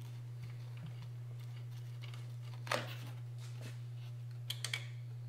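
Small handling clicks of a new front strut and spring assembly being pushed up into place in the wheel well: one click a bit past halfway and a quick run of small metal clicks near the end, over a steady low hum.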